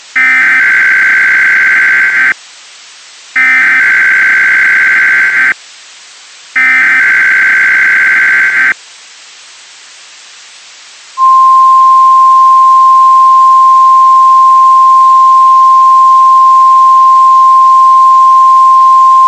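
Three bursts of EAS/SAME digital header data, each about two seconds long with about a second between them. After a pause, the NOAA Weather Radio warning alarm tone starts about eleven seconds in: one steady, loud, single-pitch tone. It is the alert signal of an Emergency Alert System Required Weekly Test, meant to trigger alarms on weather radio receivers.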